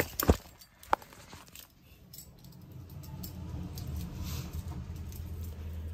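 Phone handling noise from a phone held close and being moved: three sharp clicks within the first second, then a low rumble that builds from about three seconds in.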